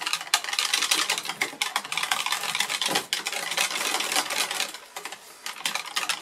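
Wire whisk beating soap batter in a plastic jug: a fast, scratchy clicking of the wires against the sides of the jug, easing off briefly a little after halfway.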